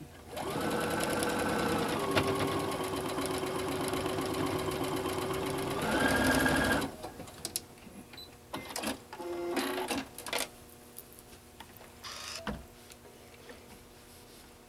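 Electric domestic sewing machine stitching a quilt seam, its motor whining steadily at a fast pace, settling a little lower in pitch, then speeding up briefly before stopping about seven seconds in. A few light clicks and knocks follow as the fabric is handled.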